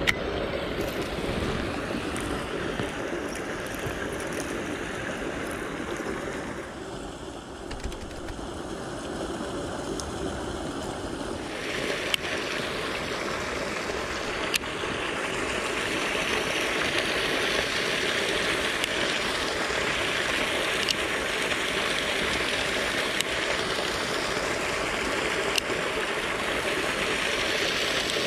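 Water pouring steadily from drainage pipes into a concrete irrigation canal. The rushing noise gets brighter about twelve seconds in, and a few short clicks stand out over it.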